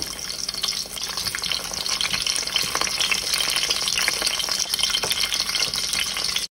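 Hot pepper and garlic cloves frying in a little oil in a pot: a steady sizzle with many fine crackles.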